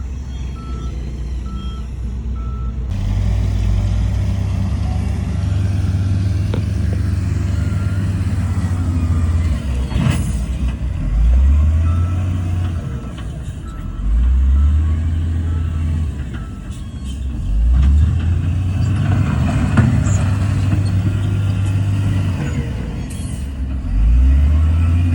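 A reversing alarm beeps steadily for the first few seconds. Then heavy diesel earthmoving machinery runs loudly, revving up and easing off several times.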